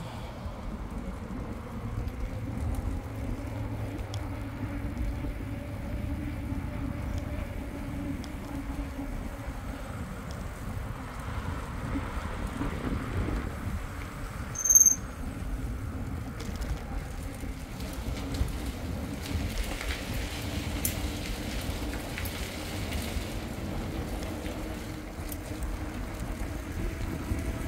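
Mountain bike's knobbly tyres rolling on a concrete path, a steady low rumble. About halfway through there is one short, loud high-pitched ring.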